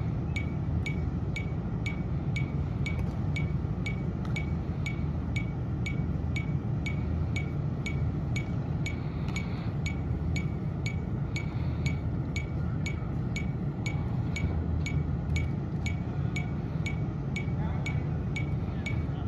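A metronome clicking steadily at a little over two beats a second, over a steady low rumble.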